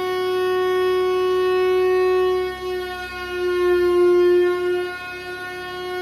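Chrysler air raid siren, a Hemi V8-driven rotating siren, sounding one steady tone. Its pitch holds level while its loudness dips briefly and then swells louder about four seconds in.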